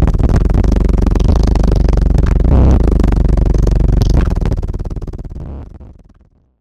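Electronic music with heavy low bass, fading out over the last two seconds.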